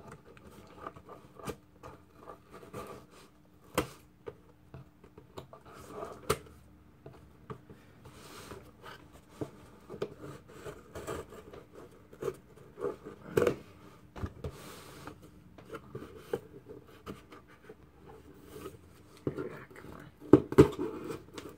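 Scissor blades scraping and snipping along packing tape on a cardboard box, an irregular run of scratches, small clicks and knocks on the cardboard. A denser, louder flurry of scraping comes near the end.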